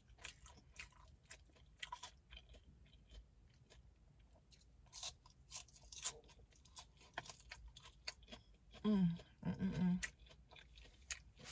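Close-up crunchy chewing of a hard-shell taco, with many small crisp crackles as the shell breaks between the teeth. A couple of short hums near the end.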